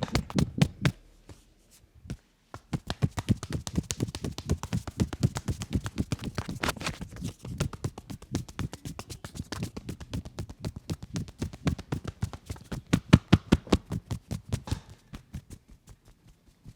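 Hands tapping and slapping quickly and rhythmically on a person's head during a barber's head massage, with a short pause about two seconds in.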